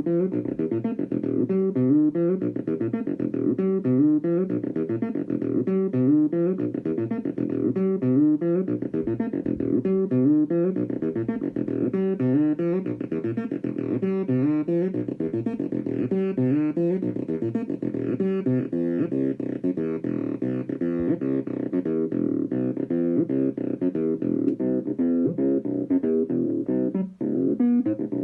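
Behringer TD-3, a TB-303-style analog bass synthesizer, playing a fast sequenced bass line of short pitched notes, the pattern looping about every two seconds.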